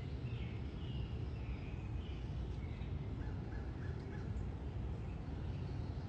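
Outdoor ambience: a steady low rumble with faint bird calls over it, including a quick run of four short notes about three seconds in.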